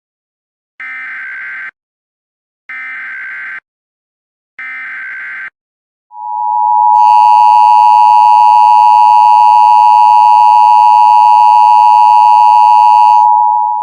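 Emergency Alert System SAME header: three bursts of warbling data tones, each about a second long and a second apart, then the loud, steady EAS attention signal lasting about eight seconds. A second, many-pitched tone is layered over most of it, starting about a second after it and stopping just before it ends. Together they announce the start of a new emergency alert.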